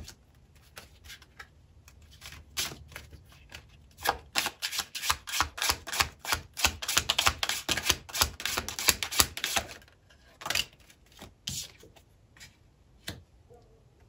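A deck of tarot cards being shuffled by hand: a few scattered clicks at first, then a dense run of rapid card slaps for about six seconds, trailing off into a few last taps.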